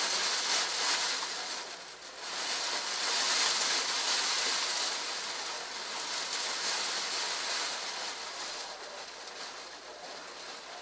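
Heavy thunderstorm rain pouring down, a dense hiss that surges at the start, dips briefly, swells again about two seconds in and slowly eases off toward the end.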